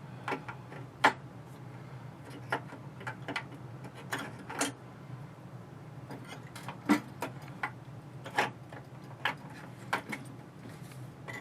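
Irregular clicks and taps of AA batteries and the plastic battery compartment of an electronic safe being handled as the batteries are fitted, over a low steady hum.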